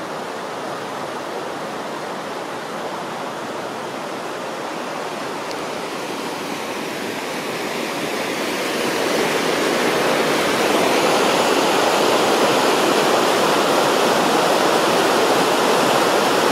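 Rushing floodwater of a stream in spate after heavy storm rain, a steady rush of fast muddy water over riffles. It grows louder about halfway through and stays at that level.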